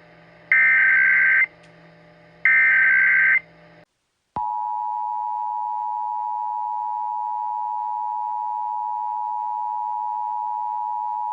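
Emergency Alert System SAME header: two data bursts, each about a second long and a second apart. After a brief silence, the EAS two-tone attention signal (853 and 960 Hz together) comes in about four seconds in and holds steady.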